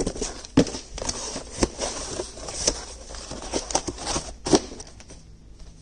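Rummaging through a cardboard box: cardboard and paper rustling and crinkling, with irregular knocks and clicks as items are lifted out and set down.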